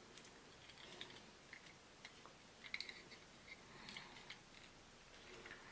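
Faint, scattered small clicks and taps of a plastic toy figure being handled and pressed onto its little plastic vehicle, over near silence.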